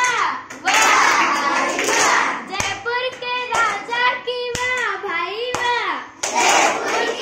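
A group of schoolchildren chanting together and clapping, then a single high voice sings a line alone over a clap about once a second, and near the end the whole group comes back in loudly with chanting and clapping: a call-and-response clapping game.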